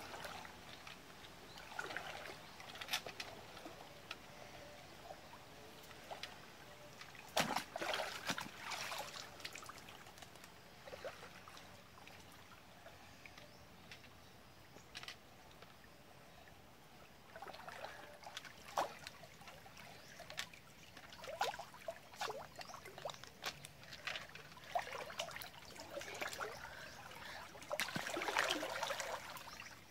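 Water splashing and sloshing as people wade and move their hands through a shallow creek. It comes in irregular spells over a faint steady trickle, with the loudest splashing about eight seconds in and near the end.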